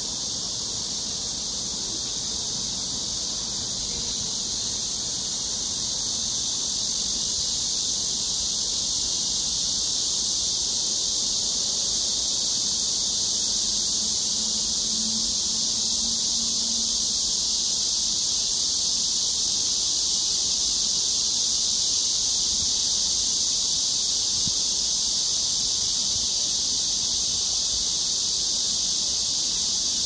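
Dense, steady chorus of insects: a high-pitched, unbroken shrilling that grows slightly louder over the first several seconds.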